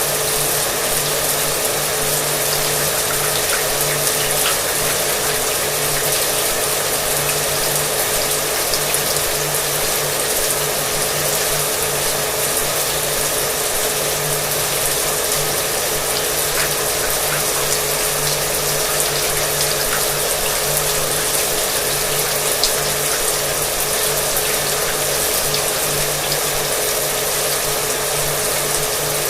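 Shower water running steadily together with a hair dryer blowing. The dryer's motor makes a constant hum and whine under the hiss of the water.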